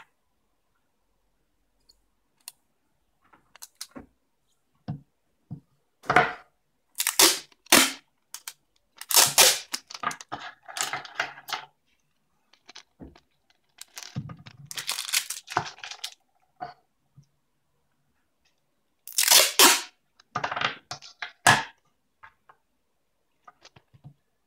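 Adhesive tape being peeled off its roll in a series of short ripping pulls, five or so bursts, with a few light knocks and clicks of the rolls being handled in between.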